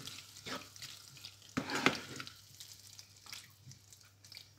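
Tomato and spice masala sizzling in a nonstick pan on high heat while a black plastic spatula stirs it, scraping through the thick paste in several short strokes, the loudest a little under two seconds in.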